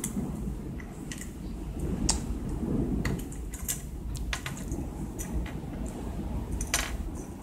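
Small plastic toy parts clicking and tapping as they are handled and pressed together by hand, a scatter of light irregular clicks over a low background.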